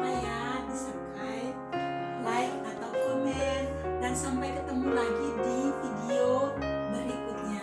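Background music: a song with a singing voice over keyboard accompaniment and sustained low notes.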